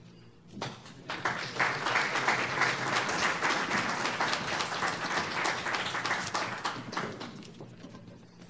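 Audience applauding: the clapping starts about a second in and dies away near the end.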